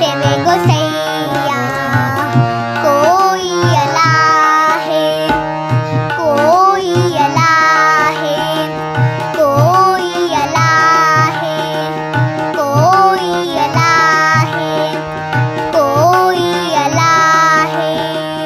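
A young girl sings a Sikh devotional hymn (shabad) with wavering held notes, over steady harmonium chords. A pair of tabla drums keeps an even beat beneath her voice.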